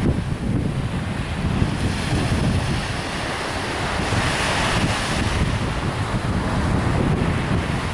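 Wind buffeting the microphone over the steady rush of ocean surf, with a wash of surf swelling about halfway through.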